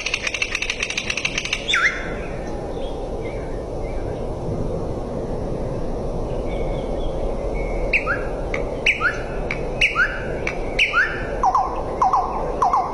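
A bird calling: a fast rattling trill for the first couple of seconds, then after a quieter stretch a series of short rising call notes, one or two a second, the last few pitched lower.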